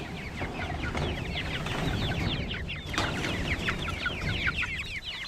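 A flock of young chickens peeping and clucking, many short falling chirps overlapping without a break.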